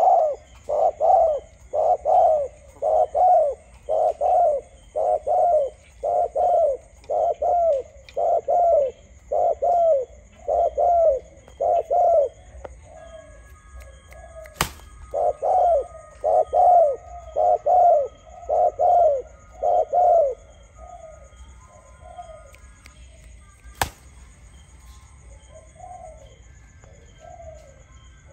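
Spotted dove cooing: a long run of even, repeated coos at about three every two seconds, loud for the first twenty seconds. The coos then turn softer and further apart.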